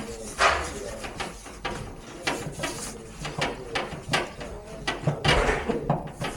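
Work noises on an air conditioner: a string of sharp clicks and knocks, with bursts of rustling about half a second in and again near the end.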